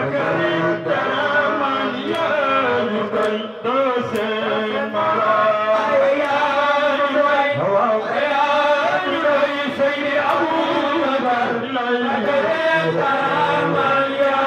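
Several men chanting a devotional song together into microphones, one voice leading with long held notes that slide in pitch.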